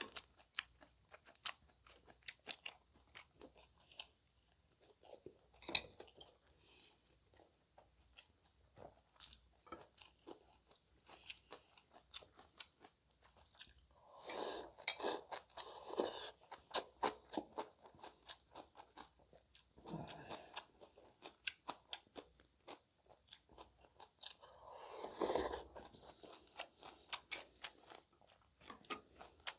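A person chewing and crunching food close to the microphone, with many small wet mouth clicks. Louder, denser bursts of eating come about halfway through and again near the end.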